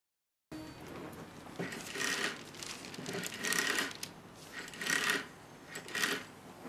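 Rotary dial of an old desk telephone being turned and whirring back, four or five dialled digits in a row about a second apart.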